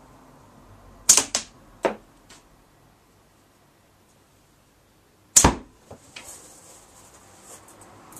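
Slingshot with single TheraBand bands shooting steel balls at a target: two sharp cracks of shot and impact, about a second in and again about four seconds later, each followed by a few smaller knocks.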